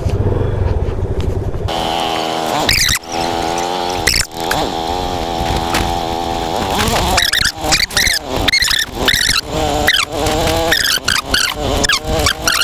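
Yamaha FZ25's single-cylinder engine under way on a rough, rocky dirt trail. It holds a fairly steady pitch at first, then rises and falls quickly from about halfway as the throttle is worked over the bumps, with a couple of knocks from the rough ground.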